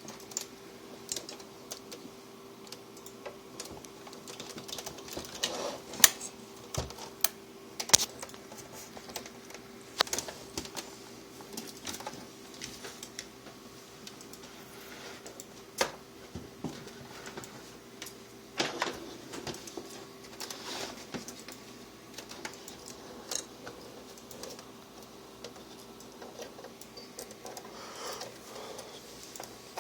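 Irregular clicks, taps and light knocks of cable connectors and plastic monitor parts being handled and plugged back in, over a faint steady hum.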